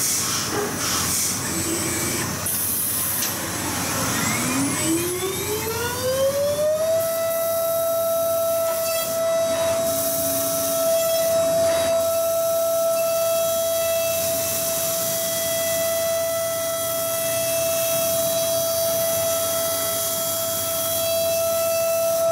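High-speed CNC milling machine spindle spinning up, its whine rising in pitch for about three seconds, a few seconds in, then holding one steady high whine as the end mill cuts the aluminium sheet, over a constant hiss.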